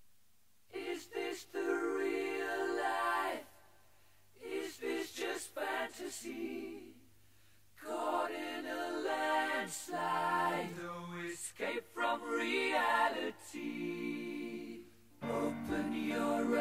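Background music: unaccompanied a cappella singing in phrases separated by short pauses.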